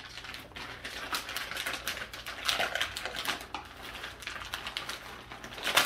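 Clear plastic bag crinkling and rustling as it is handled and pulled open, in irregular crackles, with one louder crackle near the end.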